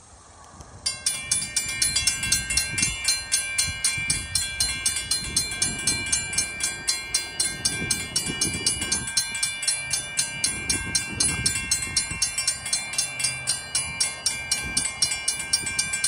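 Mechanical railroad crossing bells start ringing about a second in, with rapid, evenly spaced strikes as the crossing signals are activated.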